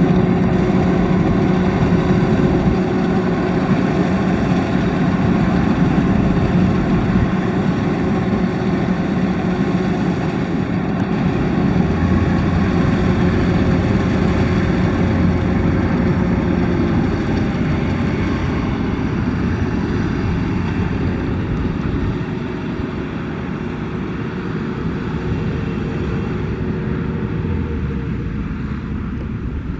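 Kubota DC-93 combine harvester running, its four-cylinder turbocharged diesel engine at a steady speed with the dense mechanical noise of the threshing and cutting machinery. It grows a little quieter toward the end.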